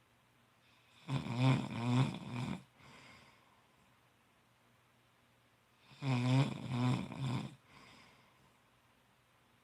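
A sleeping man snoring loudly. There are two snores about five seconds apart, each about a second and a half long with a rattling, wavering pitch, and each is followed by a fainter breath out.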